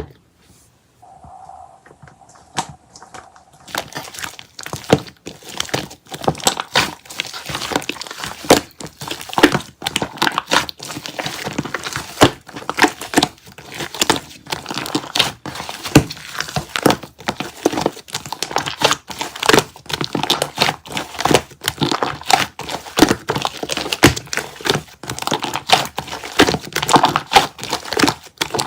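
Slime being squeezed and pressed by hand, a dense, irregular run of crackling and crinkling clicks that starts about four seconds in.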